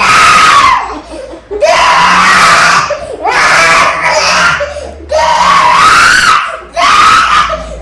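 Baby crying hard: five loud, high wails of about a second each, with short breaks between them.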